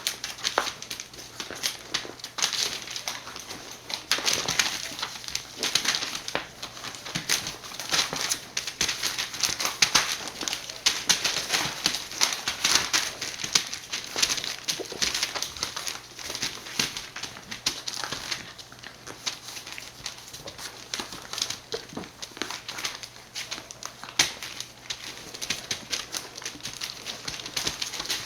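Border collie puppies moving about and playing: a continuous stream of quick clicks, scratches and rustles.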